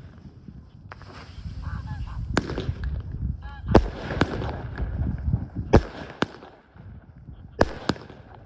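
F2 consumer fireworks and firecrackers going off: about seven sharp bangs at uneven spacing, some in quick pairs, over a constant low rumble and crackle.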